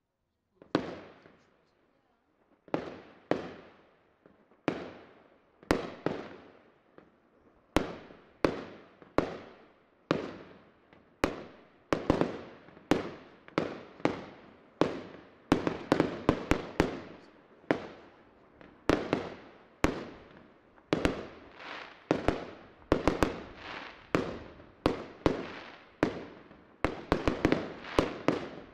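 Fireworks display: aerial shells bursting one after another, each sharp bang dying away over about a second. The bangs come every second or two at first, then crowd together from about halfway, with quick cracks among them.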